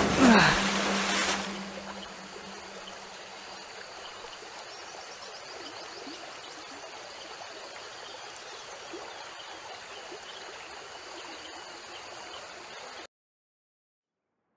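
Shallow forest stream flowing steadily over stones. A loud rushing burst with a falling pitch and a low held hum opens it and dies away within the first second or two, and the stream sound cuts off suddenly near the end.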